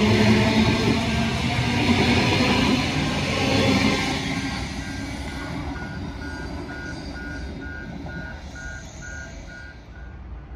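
Queensland Rail electric multiple-unit train pulling away, its running noise fading over the first few seconds. Under it and then alone, a steady series of short electronic warning beeps, about three a second, stops near the end.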